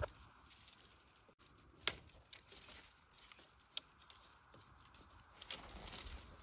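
Dry bamboo twigs and dead leaves crackling and snapping as a hand pushes in among the stems of a bamboo clump, with scattered sharp snaps, the loudest about two seconds in, and a denser rustle near the end.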